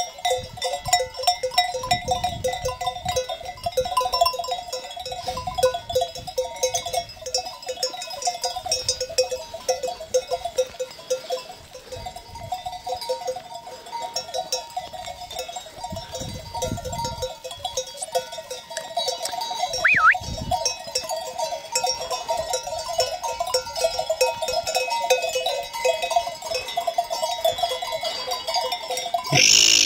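Bells on a flock of grazing sheep clanking and jangling without pause, many bells ringing at once.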